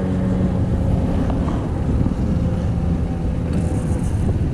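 Twin Suzuki 200 four-stroke outboard motors running steadily at trolling speed, a constant engine drone.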